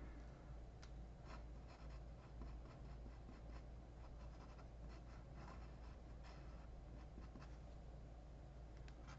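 Faint scratching of a Sharpie marker pen drawing short, irregular strokes on paper, over a low steady hum.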